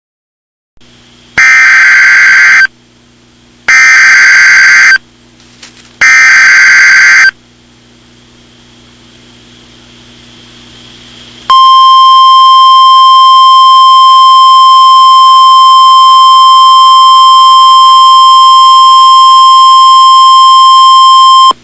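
Emergency Alert System header opening an alert: three short bursts of screechy digital data tones, each about a second long, then, after a pause, a loud steady single-tone attention signal held for about ten seconds that cuts off suddenly.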